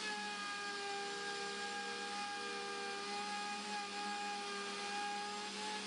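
Router motor running with a steady high whine as its bit cuts a spiral groove into a wooden cylinder held on a lathe, in a spiral-cutting jig.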